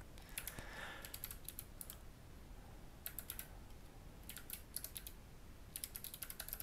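Faint typing on a computer keyboard, in short runs of quick keystrokes with pauses between them.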